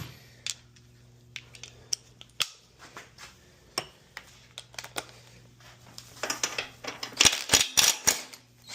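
Metal hand tools and parts clinking and clattering during a lawn mower repair. Scattered single clicks come first, then a busier run of quick metallic clinks in the last few seconds.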